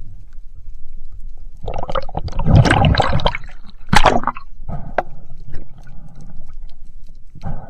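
Underwater water noise against a diving camera: gurgling and rushing swells, loudest through the second and third seconds, with a single sharp click about four seconds in.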